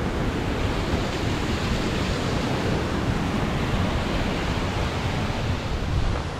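Steady rush of white water tumbling over rocks in a mountain river, a full, even roar with a strong low rumble.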